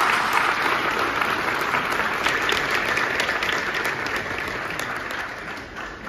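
A large seated audience applauding, a dense steady mass of clapping that gradually dies down over the last couple of seconds.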